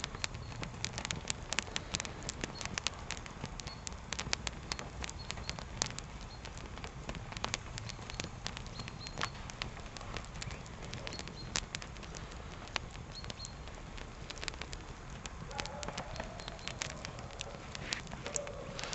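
Spruce-branch campfire crackling, with sharp snaps and pops scattered irregularly throughout over a low steady rumble.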